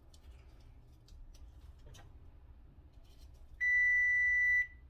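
An electronic appliance buzzer gives one steady, high beep about a second long, starting past the middle, its timer signalling that it has finished. Before it come faint clicks of metal tongs in a nonstick air fryer basket.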